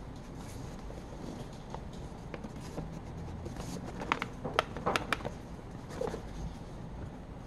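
Hands turning over and handling a 3D-printed plastic case: rubbing and a cluster of sharp plastic clicks and taps about four to five seconds in, with one more a second later, over a steady low hum.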